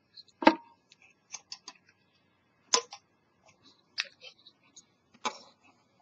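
A Zippo lighter's metal case and insert being handled on a table while the insert is turned over to refill it with fuel: a string of sharp metal clicks and knocks, the loudest about half a second in and three more near three, four and five seconds, with lighter ticks between.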